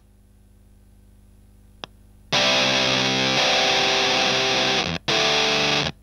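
Electric guitar through a Tonebender MkII clone fuzz pedal at maximum gain with its bias starved (bias at minimum, attack at maximum), the gated "velcro" fuzz setting. The sound cuts off abruptly and leaves only low hum, with a single small tick, for about two seconds, then a loud fuzzed chord comes in and changes about a second later, with two brief cut-outs near the end.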